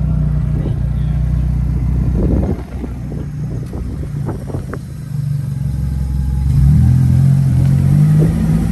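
Nissan S13 Silvia's engine running as the car is driven. It drops off about two and a half seconds in, with a few light clicks, then picks up revs and gets louder again from about six and a half seconds.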